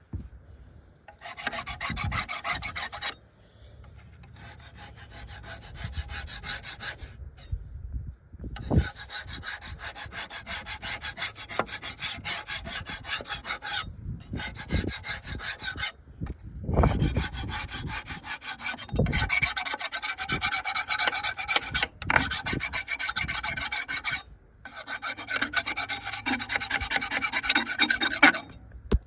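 Electric sander running against the wooden bench, sanding off old paint, in several runs of a few seconds each with short breaks between.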